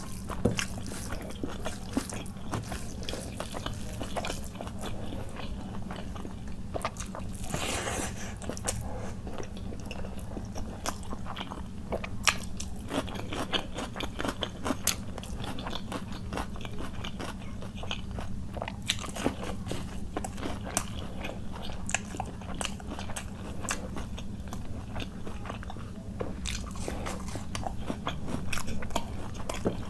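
Close-miked chewing and mouth clicks of a person eating khichuri and chicken curry by hand, with a longer noisy crunch about eight seconds in. A steady low hum runs underneath.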